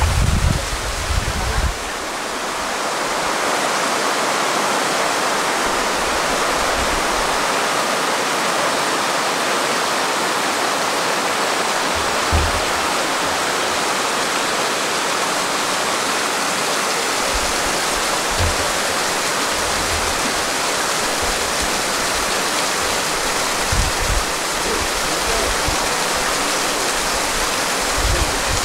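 Fast-flowing mountain river water rushing steadily, a dense even hiss of torrent or falls, with a few brief low bumps of wind on the microphone.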